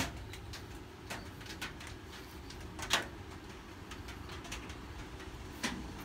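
Scattered light clicks and taps of a small bent metal latch bracket being handled in gloved hands over a bench vise, the loudest a sharp knock about three seconds in, over a steady low hum.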